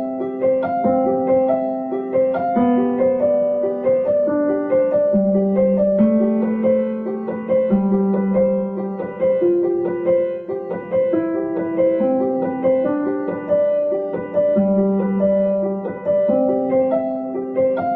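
Background piano music: a gentle, steady pattern of repeated notes over slower-changing bass notes.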